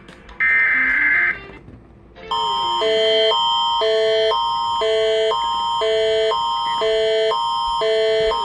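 Canadian Alerting Attention Signal (Alert Ready), the electronic tone that comes before an Environment Canada warning: a steady high tone over chords of lower tones that switch back and forth about twice a second. It starts a couple of seconds in, after a short high beep about half a second in.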